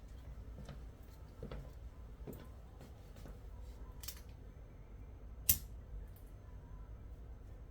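A scattering of short clicks and light rustles during a chiropractic adjustment, with one much louder, sharp click about five and a half seconds in.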